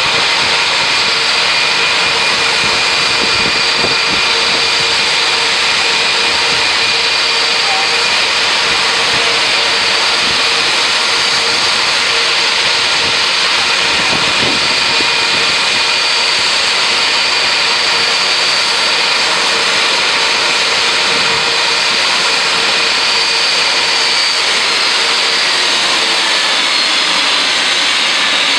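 Jet airliner engines running with a loud steady roar and a high whine; the whine slides down in pitch near the end.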